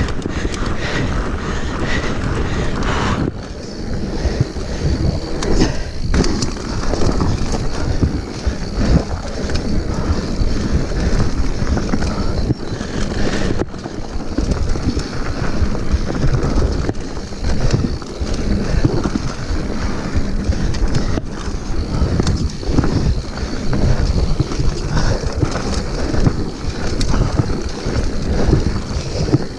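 Mountain bike rolling fast down a gravel and rocky dirt trail: tyres crunching over loose stones and the bike rattling with frequent knocks from rocks and bumps, under steady wind buffeting the microphone.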